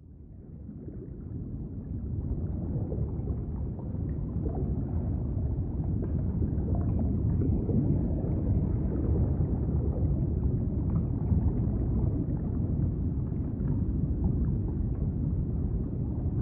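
Low, muffled underwater-style water ambience, as of a large aquarium tank, with no distinct events. It fades in over the first couple of seconds and then holds steady.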